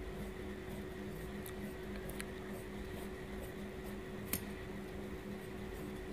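Tailor's shears cutting through cloth, with a few short sharp snips of the blades, the sharpest about two-thirds of the way through, over a steady low hum.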